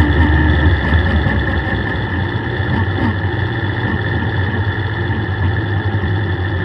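Suzuki Hayabusa inline-four motorcycle engine fitted in a race car, running steadily at low revs as the car rolls slowly, heard from onboard.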